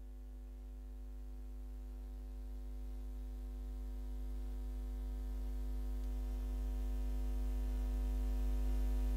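Steady electrical mains hum with a stack of overtones, no voices or crowd, slowly growing louder.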